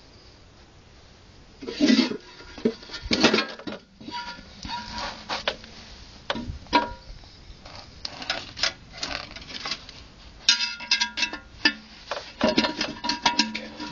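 Steel shell of a cut-open hermetic refrigeration compressor being handled, with irregular metallic knocks, clanks and scrapes that ring briefly, starting about two seconds in.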